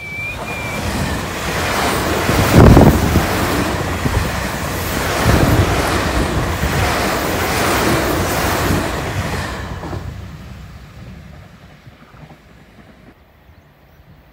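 Tobu 70000 series electric commuter train running past close by: a loud rush of wheels on rail with a couple of heavy thuds. It fades away after about ten seconds, leaving quiet.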